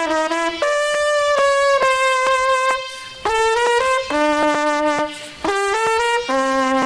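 Music: a solo trumpet plays a slow melody one note at a time, with the notes held and short breaks between phrases.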